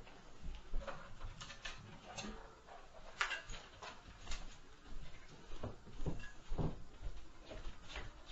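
Heavy footsteps stomping overhead from the apartment upstairs: irregular deep thuds with a few sharper knocks and clicks. The deepest thuds come as a cluster about two thirds of the way through.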